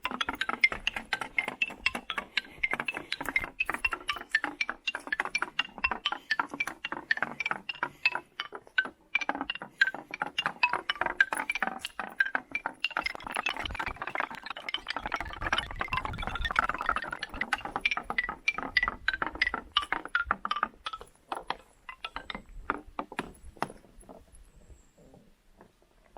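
A wooden ball rolling down a forest xylophone, striking its wooden bars one after another in a rapid run of notes that plays a tune. The notes thin out and die away near the end.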